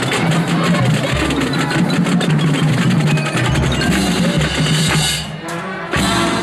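Marching band playing with its front-ensemble pit percussion: fast strikes on mallet keyboards, drums and hand drums over sustained low notes. The music thins out briefly about five seconds in, then the full ensemble comes back in loudly just before the end.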